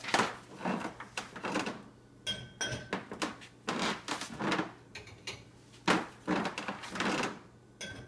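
Drinking glasses clinking and knocking as they are picked up and set into a dishwasher's wire top rack, with rattles of the rack; a glass rings briefly about two seconds in.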